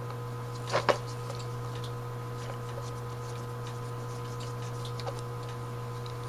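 Parts of an Autolite 1100 carburetor being handled during teardown: a pair of sharp metal clicks a little under a second in, then scattered faint ticks. A steady low hum runs underneath.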